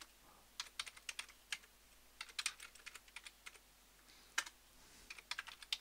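Typing on a computer keyboard: irregular key clicks in short runs with brief pauses between them.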